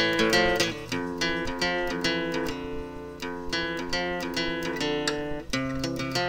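Background music: an acoustic guitar piece, plucked and strummed in a quick, steady rhythm.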